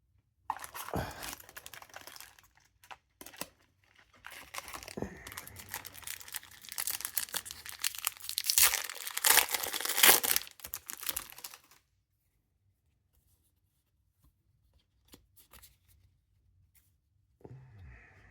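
Foil wrapper of a Japanese Pokémon Shiny Treasure ex booster pack being torn open and crinkled. Dense crackling and tearing runs for about eleven seconds, loudest near the end, then stops. Only a few faint ticks follow.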